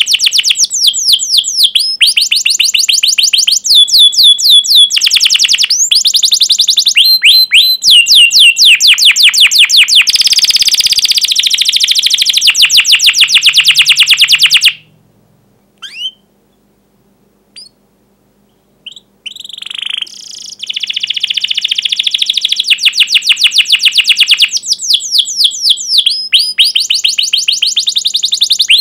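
Canary singing long, rapid trills of sharp downward-sweeping notes, many a second. The song breaks off for several seconds in the middle, with only a few single calls, then starts again.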